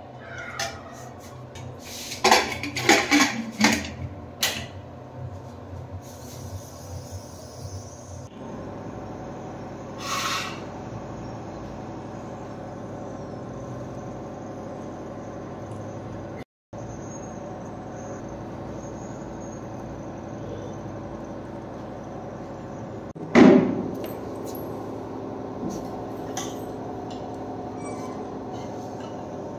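Metal spoon clattering and knocking against an aluminium pressure cooker pot while stirring curry, a quick run of knocks a couple of seconds in. After that, a steady background hum with one loud knock later on.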